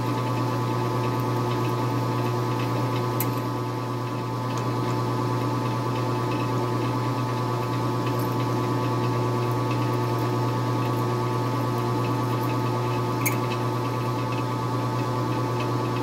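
Metal lathe running steadily while a twist drill in the tailstock chuck bores out the centre of the spinning workpiece. It makes a constant low hum with a steady higher whine, and gives a couple of faint sharp ticks.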